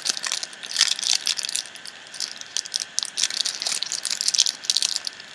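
A foil trading-card packet crinkling and crackling in the hands as it is pulled open, in irregular bursts of rustling.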